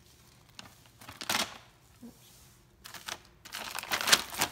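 A plastic dog-treat bag crinkling: a brief rustle about a second and a half in, a couple more around three seconds, then continuous, louder crinkling near the end.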